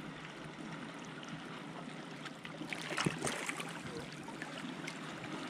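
Shallow seawater trickling and lapping among shoreline rocks, with a few brief sharp sounds about three seconds in.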